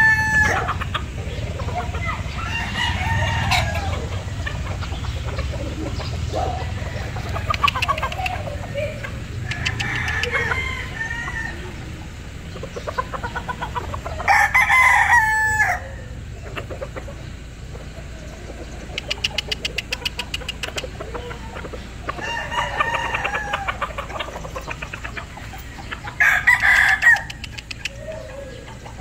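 Haskell-line gamefowl roosters crowing again and again, each crow lasting about a second and a half. The loudest crows come near the start, about halfway through and near the end, with fainter crows and rapid clucking between them.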